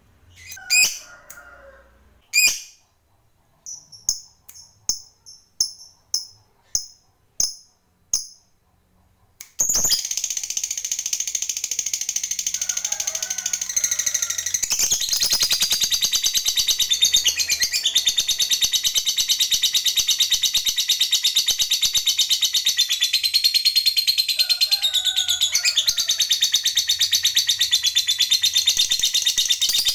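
Lovebird calling: a couple of sharp calls, then a run of about eight short high chirps, two a second, then from about ten seconds in a long unbroken rapid chattering trill, the 'ngekek panjang' (long ngekek) song that lovebird keepers prize.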